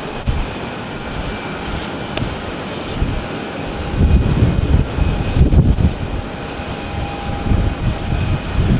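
Rolls-Royce Trent XWB jet engines of an Airbus A350-900 at takeoff thrust as it climbs away: a steady roar with faint whining tones, the low rumble swelling about four seconds in.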